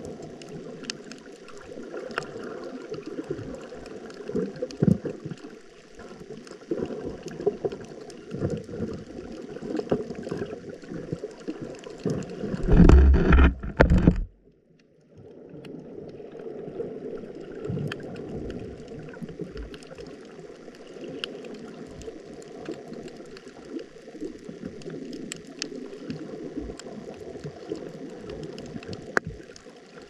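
Underwater sea ambience: a steady gurgling wash of water with scattered faint clicks. About thirteen seconds in, a loud low rush of water swells for a second or two and cuts off abruptly into a brief silence before the wash resumes.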